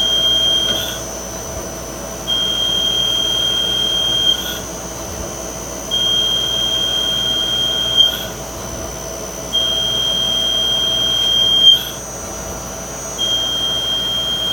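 CNC lathe tool squealing on each dry turning pass, a high steady tone lasting about two seconds, heard five times with short pauses between and a brief sharp peak as each pass ends. A fainter steady machine whine runs underneath.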